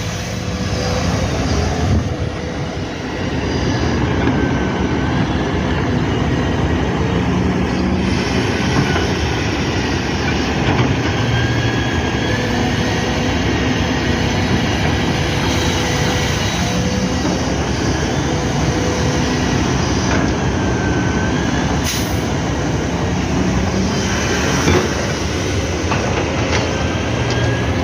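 Hydraulic excavator running hard at full throttle while digging and dumping soil: a steady loud diesel drone with whining hydraulics that rise and fall, and two sharp knocks near the end.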